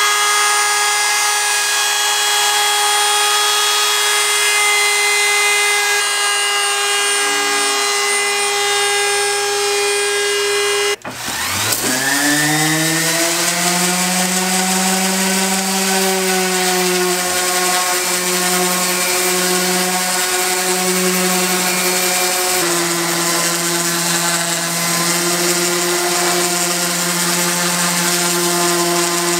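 Wood router running steadily for about the first eleven seconds, then cut off abruptly. A DeWalt random orbital sander then starts up, its pitch rising for a couple of seconds before it settles into a steady run while sanding a wooden shelf board.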